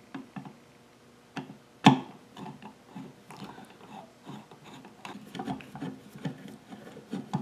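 Screwdriver tightening the tote bolt of a Stanley bench plane: a series of small metal clicks and scrapes, with a sharper knock about two seconds in. Two washers added under the bolt let the wooden handle draw up tight instead of the bolt bottoming out.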